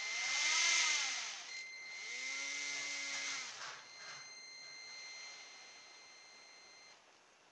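Tiny brushed quadcopter motor, driven through a brushed ESC from a servo tester, spun up and back down twice, its pitch rising and falling each time. A steady high whine from the ESC's 2 kHz drive runs under it and stops about seven seconds in.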